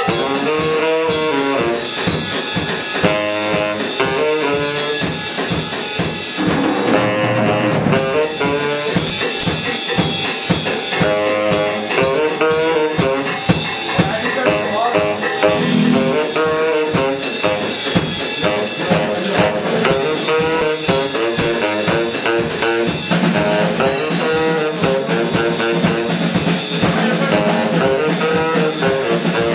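Live band playing: a drum kit keeping a steady beat under a melodic lead line.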